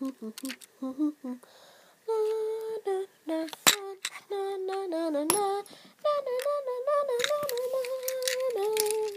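A voice humming a wavering tune, short notes at first and then long held ones. Several sharp clicks from the plastic toy being handled fall in between.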